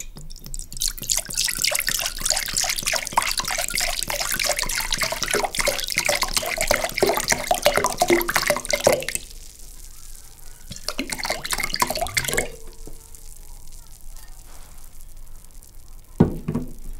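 Apple juice poured from a glass bottle into a glass mixing bowl, the stream splashing into the liquid for about nine seconds, then a second, shorter stretch of splashing after a brief pause. A short knock near the end.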